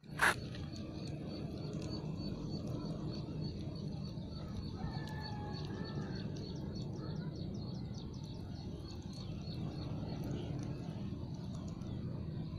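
Steady outdoor wind noise with a quick run of short, high chirps repeating several times a second, fading out about two-thirds of the way through, and a short two-note call about five seconds in. A single sharp click sounds just after the start.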